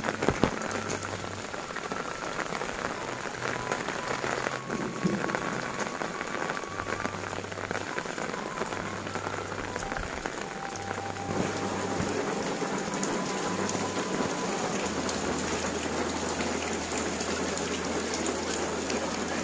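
Steady rain falling on clay-tile and thatched roofs and wet, puddled ground, with water running off the roof edges.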